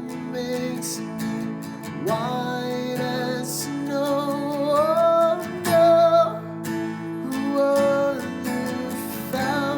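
Worship song: an acoustic guitar strummed under a sung melody.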